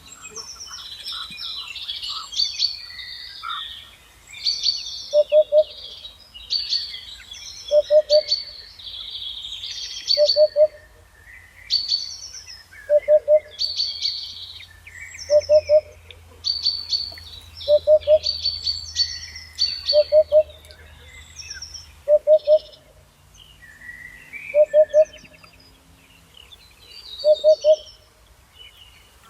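Songbirds singing and chirping in quick overlapping phrases. Under them a lower call of about three quick notes repeats roughly every two and a half seconds, about ten times.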